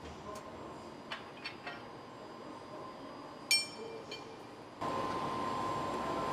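A few light clicks, then one sharp metallic clink that rings briefly, over a faint steady hum; near the end a steady machine noise with a constant tone suddenly comes in.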